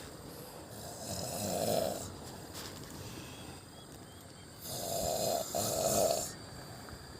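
A person snoring in deep sleep: two long snores about three and a half seconds apart, the second broken briefly in the middle.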